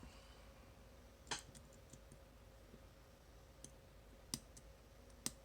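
Lock pick and tension wrench working the four-pin core of a Master Lock No. 5 padlock: a few sparse, faint clicks, the loudest about a second in, over a low background hum.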